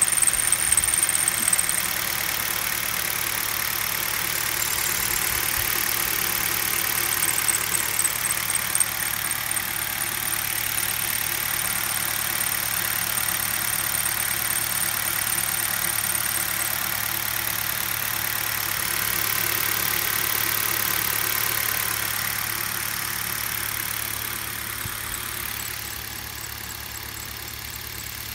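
Kia Rio engine idling steadily, its alternator drive belt running while water is trickled onto the belt to test whether the belt itself is what squeals. The belt turns out to be glazed and squealing, due for replacement.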